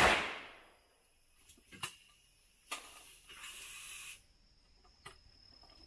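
A shotgun shot at a skeet clay target fires right at the start, its report dying away over most of a second. A few sharp clicks follow later, with a short hiss around the middle.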